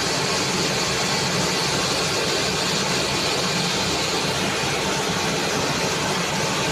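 Steady industrial machinery running, a constant low hum under an even hiss that does not change.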